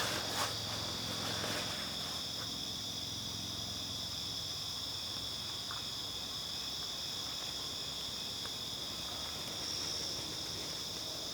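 Field crickets chirping in a dense, continuous chorus: a steady high-pitched trill at two pitches, with a few faint ticks here and there.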